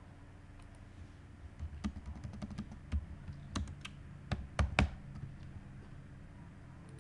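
Typing on a computer keyboard: a quick, uneven run of key clicks from about two to five seconds in, with the heaviest strokes near the end.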